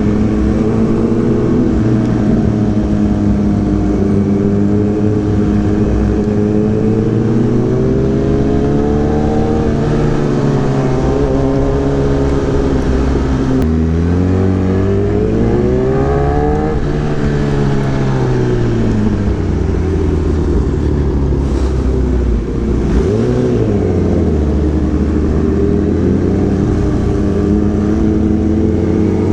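Kawasaki ZX-10R's inline-four engine with an Arrow racing exhaust, running under way at fairly steady revs. The pitch climbs and falls several times as the throttle opens and closes: a drop about halfway through, then a rise and fall over the next few seconds, and another short dip and rise later.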